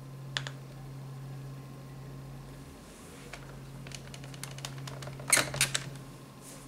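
Workslate WK-100's microcassette drive door ejecting: after a few light clicks, a quick cluster of sharp plastic clicks and clatter about five seconds in as the Eject button is pressed and the door springs open, over a steady low hum.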